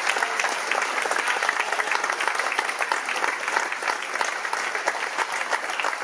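Audience applause: many hands clapping together at a steady level.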